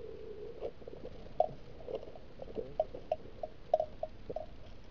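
Rustling and soft irregular knocks of people moving through tall grass with their gear, with two sharper clicks of handled equipment.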